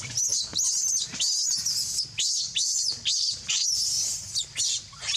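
Newborn macaque crying: a quick run of shrill, high-pitched squeals, about two or three a second, many of them sliding down in pitch.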